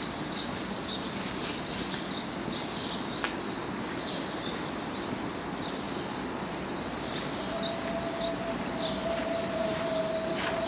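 Small birds chirping repeatedly in the trees over a steady outdoor background noise. From about seven seconds in, a steady mid-pitched tone joins in.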